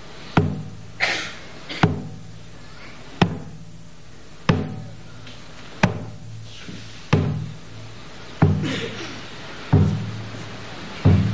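A drum struck slowly and evenly, nine strokes a little over a second apart, each one ringing low and dying away before the next.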